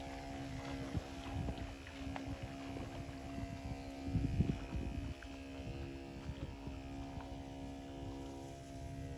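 A small engine running at a steady speed, with low wind rumble on the microphone.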